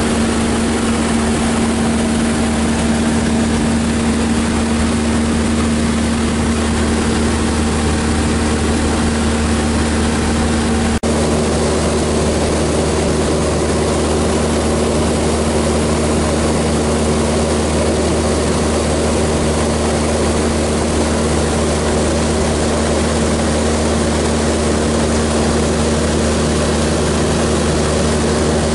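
Maule MX-7's piston engine and propeller running steadily in flight, heard inside the cabin. There is a brief dip about eleven seconds in, and the engine note shifts slightly after it.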